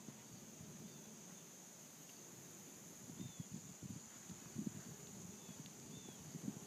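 A ridden horse's hooves thudding on arena sand, faint at first and growing louder and more frequent from about three seconds in as the horse comes closer. Behind them is a steady high insect drone, with a few short bird chirps.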